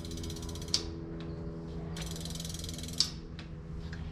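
Bicycle freehub ratchet buzzing with rapid, even clicks as the wheel spins. It runs twice, each time stopping abruptly on a sharp click, as the wheel is spun and stopped to test the freshly bled hydraulic disc brakes.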